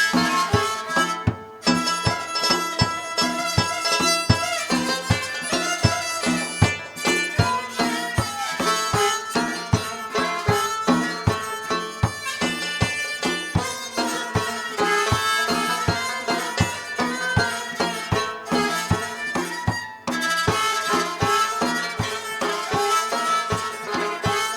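Traditional Central Asian instrumental music: quick, evenly paced note attacks over a sustained reedy tone.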